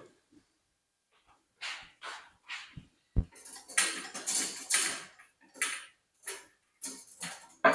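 A string of short clatters and rustles of kitchen items being handled, with a sharp knock about three seconds in and a longer stretch of rustling just after it.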